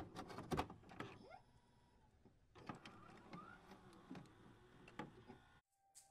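Faint sound effects for an animated loading screen: scattered sharp clicks and a few short rising whirs. The sound cuts off suddenly about five and a half seconds in.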